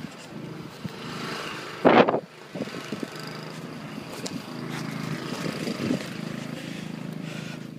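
Footsteps crunching and scuffing in deep snow, with one loud scuff about two seconds in, over a steady low hum.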